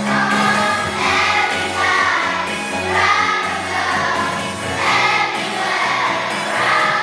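A choir singing a song with instrumental accompaniment; the sung phrases swell about once a second over held bass notes.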